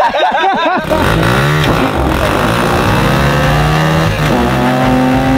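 Kawasaki KLX110 pit bike's small air-cooled four-stroke single engine revving hard. The throttle is held wide open for a burnout, spinning the rear tyre on a minivan's floor, and the revs dip briefly about four seconds in.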